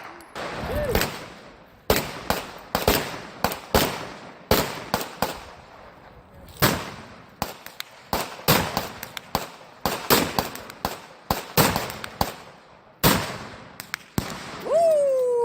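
Gunfire at an outdoor shooting range: a couple of dozen sharp shots at irregular, sometimes overlapping intervals, each trailing off in an echo, as several guns fire at once. Near the end a voice calls out briefly, falling in pitch.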